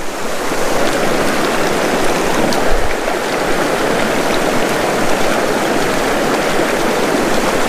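A small mountain river running low, its water rushing steadily past the microphone.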